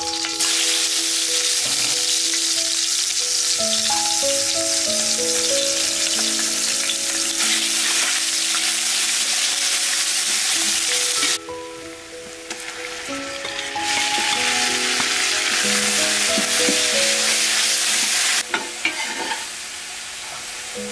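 Red paste sizzling in hot oil in a large aluminium pot, with a ladle stirring it. The sizzle starts as the paste goes in, dies down for a couple of seconds about eleven seconds in, then comes back and eases near the end. Light background music plays throughout.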